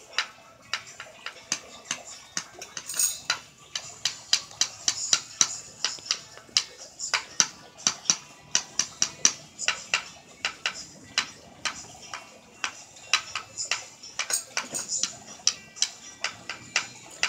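Small handheld tambourine's metal jingles clinking and jangling in irregular taps and shakes, several a second.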